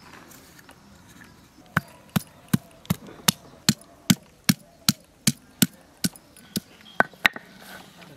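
Stone roller of a shil-nora striking ginger and garlic on the flat grinding stone to crush them: about fifteen sharp knocks, roughly two and a half a second, starting about two seconds in.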